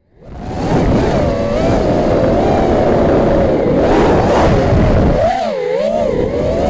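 Electric motors and propellers of a small radio-controlled aircraft, heard through its onboard camera. A steady whine wavers up and down in pitch with the throttle and dips briefly about five and a half seconds in, over a rush of wind noise.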